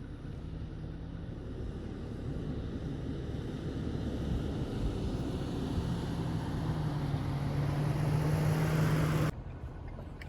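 Vehicle engine and road noise, a steady rumble with a low hum, growing louder before it cuts off abruptly about nine seconds in.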